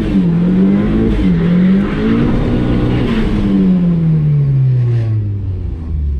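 Turbocharged 1.8-litre 20-valve four-cylinder of a Mk2 VW Golf GTI held at about 6,000 rpm during a burnout, the revs bouncing up and down for the first couple of seconds. From about three seconds in it eases off and the revs fall steadily to around 3,000 rpm.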